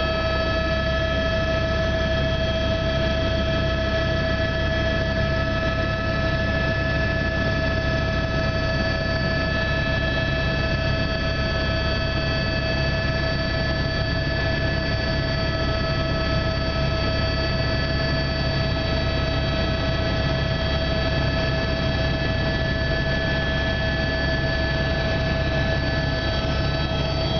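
Helicopter heard from inside the cabin in flight: a steady engine whine over a constant low rotor drone, unchanging as it climbs.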